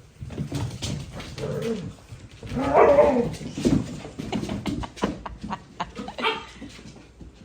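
Dog whimpering and yipping, with a louder pitched yelp about three seconds in and another short cry about six seconds in, over many quick clicks and scuffles.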